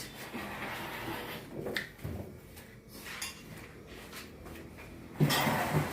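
Handling noise from a Samsung front-loading washing machine being turned and moved: scraping and knocking with a few sharp clicks.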